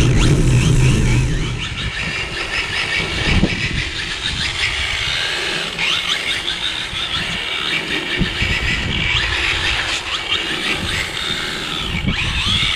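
Brushless electric motor of a 4WD RC drift car whining, its pitch rising and falling over and over as the throttle is worked and the wheels spin on a wet, slippery surface. Wind buffets the microphone for the first second or so.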